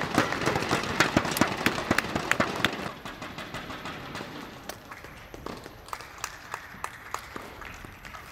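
A small group clapping fast and irregularly, stopping about three seconds in. Then single sharp knocks of a tennis ball off rackets and the court as a rally gets under way.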